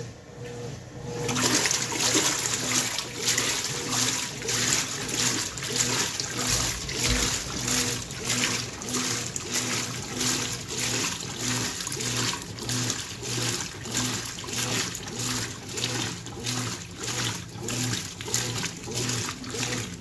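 Brastemp BWK14 top-load washing machine agitating a load of clothes in water: the agitation starts about a second in, then water and clothes slosh and swish in regular surges over a low motor hum.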